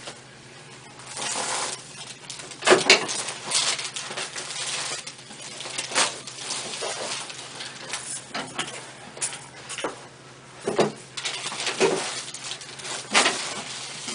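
A patient breathing in and out deeply during a chiropractic spinal manipulation, with about five sharp cracks and knocks spread through it from the joints and the handling; the loudest comes about three seconds in.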